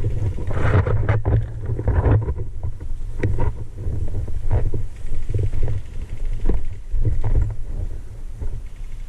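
Low, uneven buffeting on the microphone, with scattered short rustles and knocks.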